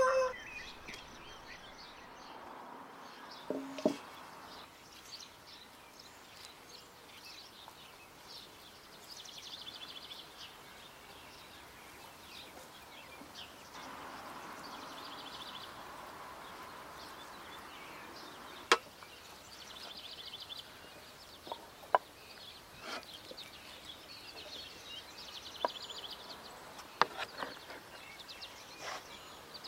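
Quiet rural outdoor ambience: small birds chirp in short trills on and off, with a few sharp clicks or knocks in the second half.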